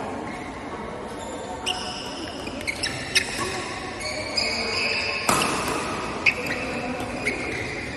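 Badminton rally: rackets striking the shuttlecock about once a second, with one louder, harder hit about five seconds in. Shoes squeak on the court floor between the strokes.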